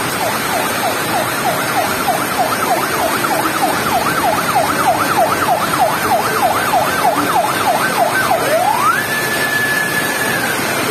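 Electronic vehicle siren on a fast yelp, about four up-and-down sweeps a second. Near the end it switches to a single rise, held high for a moment, then slowly falling.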